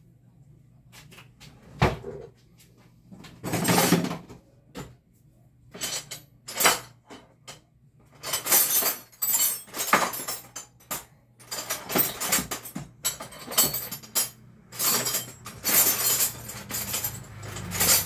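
Metal hand tools clinking, knocking and rattling in irregular clusters as wrenches are searched out from among other tools. There is a single knock about two seconds in, and the busiest clattering comes around the middle and near the end.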